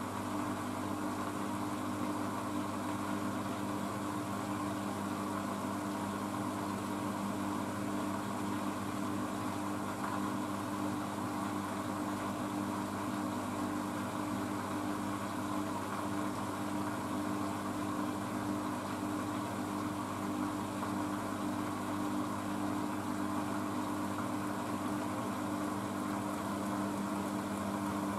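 Blomberg WNF9448 washing machine drum and motor spinning steadily in a low-speed final spin at about 300 rpm, with an even motor hum and whine.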